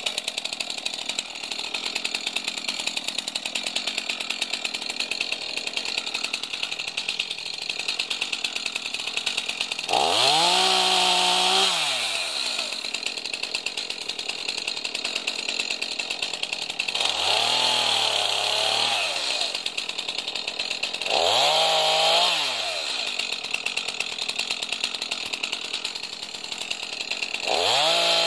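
Two-stroke chainsaw running at idle, revved up to full speed and back down four times in the second half, each rev lasting about two seconds, as it cuts through brush and saplings.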